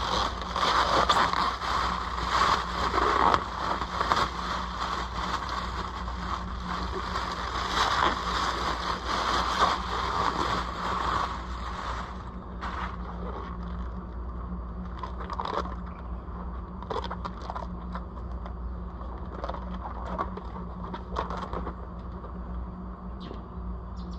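Rough scraping and crunching of a tractor tire being worked onto its rim for about twelve seconds, then scattered light knocks and clicks, over a steady low hum.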